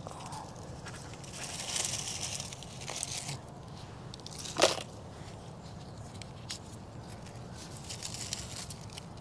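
Dry dead leaves rustling and crunching as they are pulled by hand from under a sunburst aeonium, with one sharp snap about halfway through.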